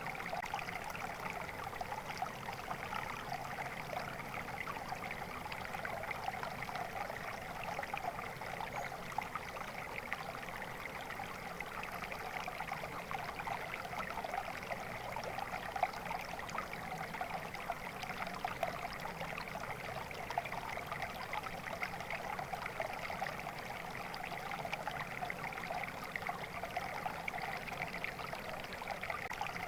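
A stream of water running steadily over stones, with a continuous splashing, trickling rush.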